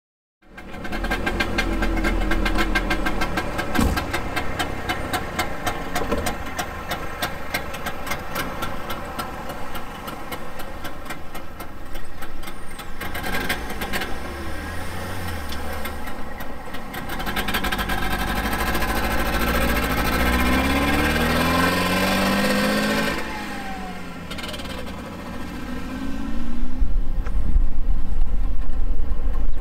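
A 1975 Trabant's two-stroke twin-cylinder engine running as the car drives, with a rapid, ragged pulse. The revs climb in pitch several times past the middle, and the sound gets louder near the end as the car comes closer.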